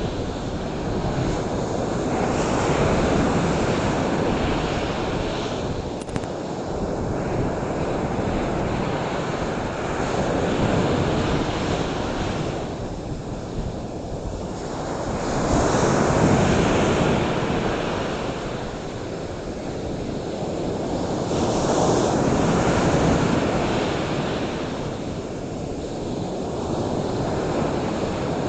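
Ocean surf breaking on a shore, a steady wash of noise that swells and recedes with each wave about every six seconds.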